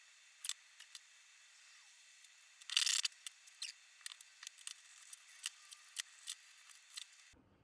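3D-printed plastic stock parts clicking and tapping as they are handled and pushed together on a wooden tabletop, with one brief louder scrape about three seconds in.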